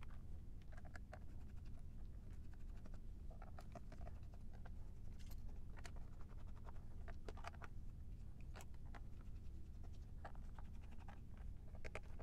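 Small screwdriver undoing the case screws on the plastic back of a Handifax 1000 pocket fax/organiser: faint scratchy scrapes and irregular clicks of the bit in the screw heads and fingers handling the case, with a quick run of clicks near the end.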